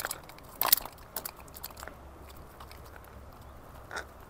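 Close, irregular clicks and crunchy crackling of hands working with something, with a sharp crunch under a second in and a single click near the end, over a faint low hum.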